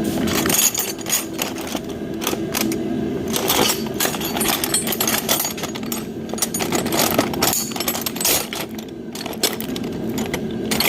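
Irregular metallic clicking and clattering of tools and hardware being handled, over a steady mechanical hum.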